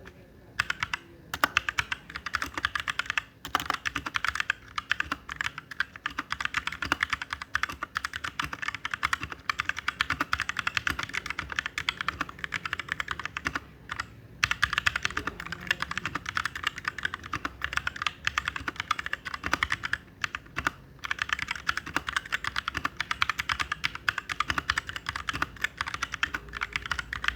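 Fast, continuous typing on a Royal Kludge RK61 mechanical keyboard with unlubricated tactile brown switches, key after key clicking and clacking, broken by a few brief pauses.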